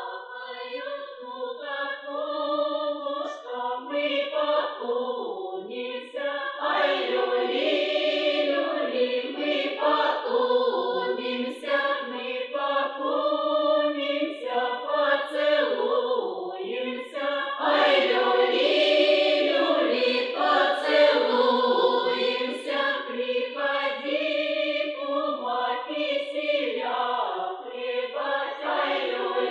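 Village girls' choir singing a Russian Kupala (Trinity) folk song unaccompanied, several voices in drawn-out phrases. It is a folk field recording played from an old vinyl flexi-disc, with the top end cut off.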